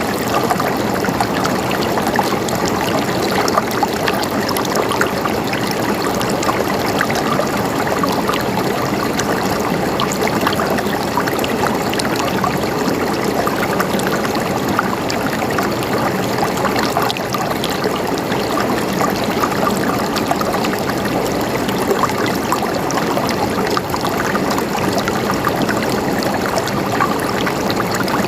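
Running water gurgling steadily, an even rush dotted with small splashes.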